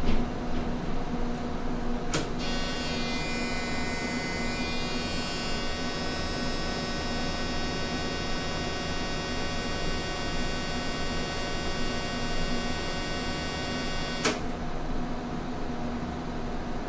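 Varian Clinac 6EX medical linear accelerator switching its treatment beam on: a click about two seconds in, then a steady high whine for about twelve seconds that cuts off with another click. A low electrical hum runs underneath.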